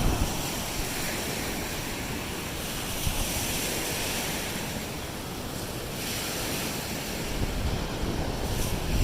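Lake Erie waves breaking and washing up a sand beach in a steady surf, with wind gusting against the microphone near the end.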